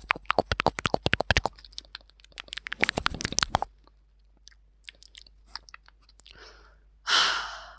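Close-miked ASMR eating sounds: crunchy chewing and mouth clicks in two dense runs, then sparser clicks. A short hissing rush comes near the end.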